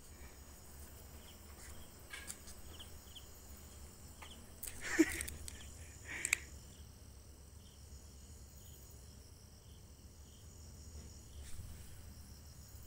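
Faint, regular chirping of a night insect, about two chirps a second. A brief sharp noise breaks in about five seconds in, the loudest moment, and a smaller one follows a second later.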